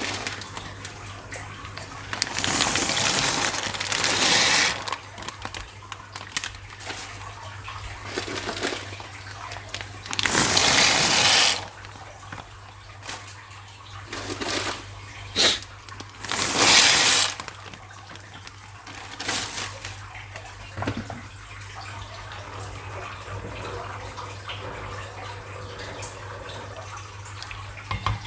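Water from a kitchen tap running in several short bursts and splashing into a sink, the longest bursts lasting one to two seconds.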